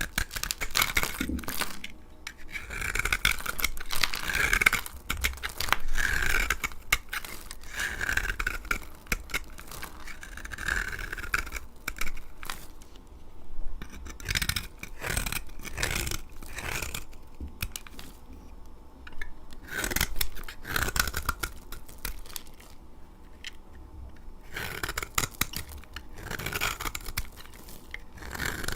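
A blade cutting through dry laundry soap: a long series of crisp scraping, crunching strokes, each a second or two long, with short pauses between them.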